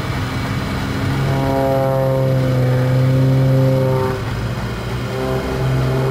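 Piston engine and propeller of an aerobatic plane flying a smoke display, its drone shifting in pitch with the manoeuvres. It eases off about four seconds in, then picks up again.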